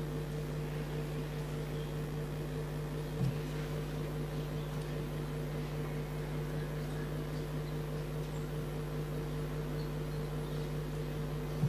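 Steady low hum over faint room noise, with one soft click about three seconds in.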